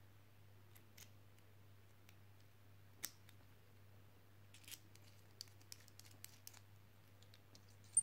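Small, sharp metal clicks and taps of precision screwdriver bits being handled, pulled from their slots in a wallet case and fitted into the screwdriver handle. There is one click about three seconds in, a scatter of lighter clicks in the middle, and the loudest click near the end.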